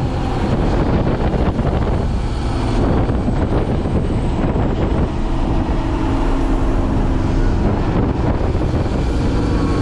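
Kenworth T800 dump truck's Cummins X15 diesel engine running steadily under way, heard from inside the cab mixed with road and wind noise through the open windows.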